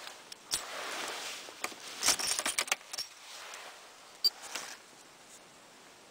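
Rustling, then a quick cluster of rattling clicks about two seconds in and a single sharp click with a short ring a little after four seconds, as of small hard objects handled; quieter toward the end.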